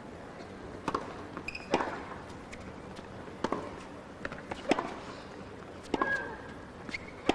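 A tennis serve followed by a baseline rally: sharp strikes of racket on ball about every second, with the ball bouncing on the hard court between them. Brief high squeaks of shoes on the court come twice.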